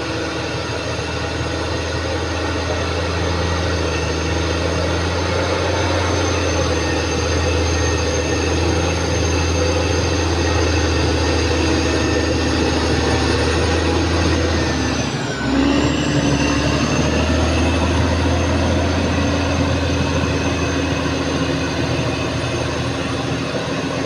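Caterpillar D6R XL bulldozer's diesel engine running steadily under work, with a high whine above it. About fifteen seconds in, the engine note dips briefly and comes back at a slightly changed pitch.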